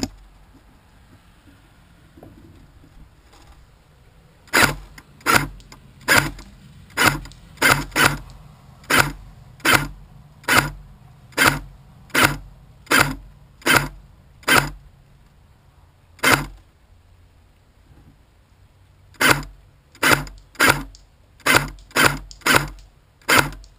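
Airsoft gun firing single shots, each a sharp snap, about two dozen in all. They come roughly one a second at first, then after a pause of a few seconds a quicker string follows near the end.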